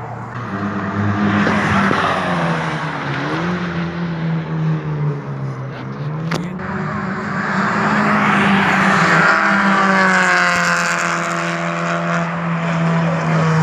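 Drift car's engine held at high revs, its pitch dipping and climbing again a few times as the driver works the throttle, with tyres squealing as it slides past; loudest in the second half.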